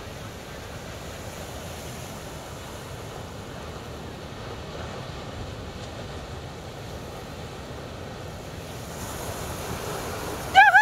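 Surf breaking on a beach: a steady wash of wave noise with wind on the microphone. Right at the very end a loud pitched call or tone begins.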